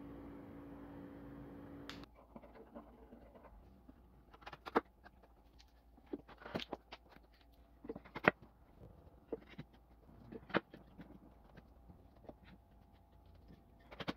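Pine boards being set by hand into a wooden frame, knocking and clacking sharply against each other and the frame several times. A steady hum stops about two seconds in.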